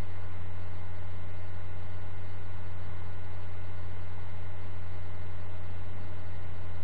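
Steady low hum, with fainter steady higher tones and hiss above it, unchanging throughout.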